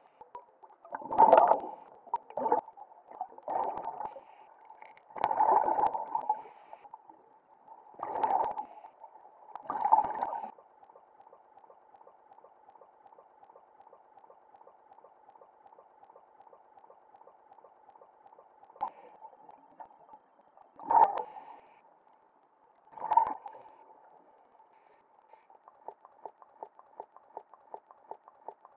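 Scuba regulator exhaust bubbles gurgling underwater in separate gushes, one per exhalation: six in quick succession over the first ten seconds, then two more about two seconds apart past the twenty-second mark. In between, a faint fast even ticking.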